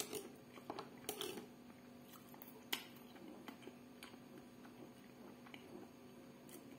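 Quiet eating sounds: chewing, with scattered sharp clicks of cutlery against a plate, loudest near the start and a little before the three-second mark. A faint steady hum runs underneath.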